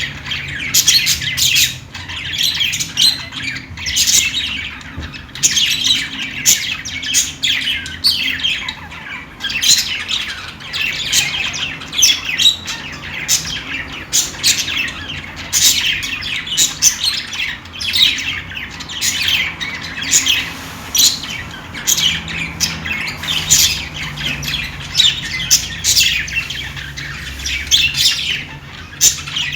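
Several budgerigars chattering and chirping nonstop, a dense mix of short, quick calls and warbles.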